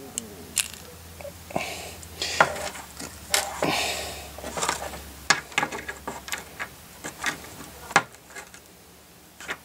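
Small hard clicks and clinks mixed with short bursts of rustling as tiny disc batteries and their packaging are handled. It stops about eight seconds in.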